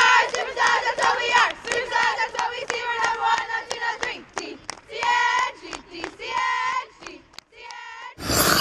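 A group of voices shouting and cheering together, rising and falling like a team cheer, thinning out toward the end. A short, loud burst of noise comes near the end.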